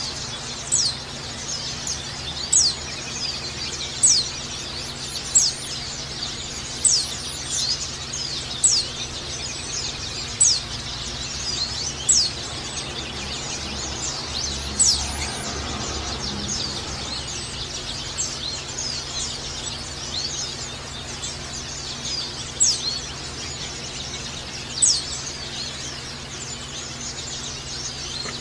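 Caged white-eye (pleci) calling: sharp, high chirps that slide downward, repeated every second or two with a pause of several seconds in the middle, over continuous fast high twittering (the chattering 'ngecal' style). A steady low hum runs underneath.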